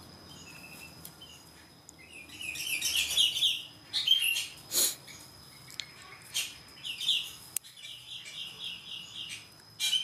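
Aviary songbirds chirping and calling: quick runs of repeated chirps and short scattered calls, with a longer chattering run near the end.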